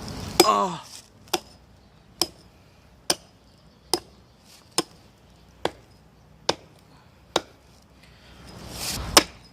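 Hatchet chopping into a very hard, dense log: about ten sharp, evenly paced strokes, roughly one a second. A brief rising rush comes just before a louder stroke near the end.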